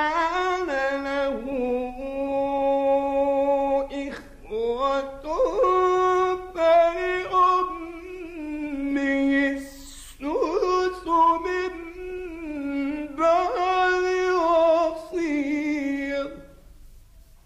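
A man's voice chanting Quran recitation in the melodic style, with long held notes ornamented by wavering turns. He pauses briefly for breath about 4 and 10 seconds in and falls silent shortly before the end.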